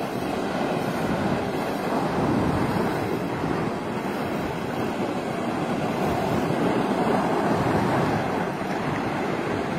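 Sea surf breaking and washing up a sandy beach in a steady roar, with wind buffeting the microphone.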